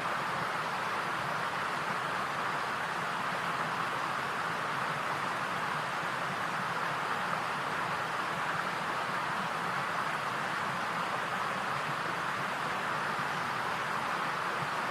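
Steady, even hiss with no change or break.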